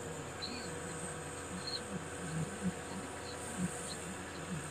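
Fiat-Hitachi crawler excavator's diesel engine running steadily under load while its hydraulics work the boom and bucket digging soil, with a wavering hum as the load changes.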